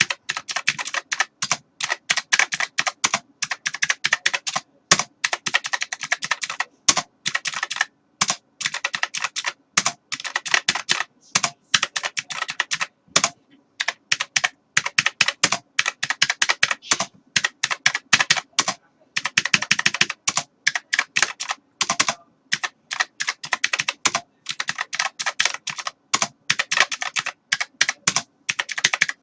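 Typing on a computer keyboard: fast, irregular runs of key clicks with brief pauses between bursts.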